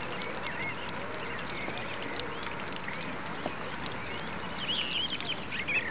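Birds calling over open water: many short chirps that get busier near the end, over a steady background hiss with scattered small clicks.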